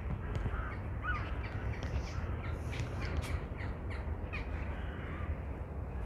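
A flock of birds calling, short harsh calls coming about two a second, over a steady low rumble.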